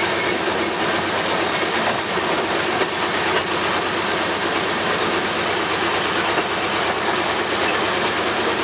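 Narrow-gauge diesel locomotive running along the track: steady engine and wheel-on-rail noise with no clear rhythm.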